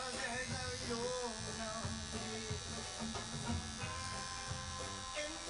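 Tattoo machine buzzing steadily as the needle works ink into skin, with background music with a singing voice.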